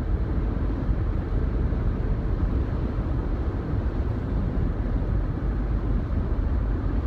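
Steady road and engine noise of a car heard inside its cabin while driving: an even, low rumble.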